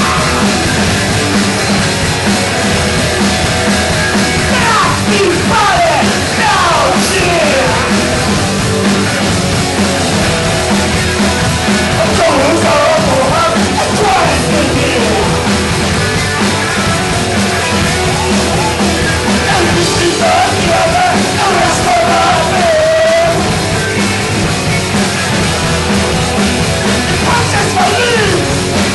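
Live punk rock band playing: electric guitars and drums with a singer's shouted vocals coming in and out.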